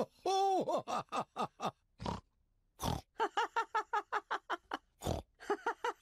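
Cartoon pigs laughing in quick pulsed bursts, broken three times by short, noisy pig snorts.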